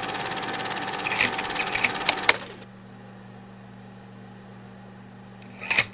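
Rapid mechanical clatter of an old film projector, a vintage-film sound effect, with a few sharp clicks; it stops about two and a half seconds in, leaving a low steady hum. Near the end comes a quick cluster of sharp clicks.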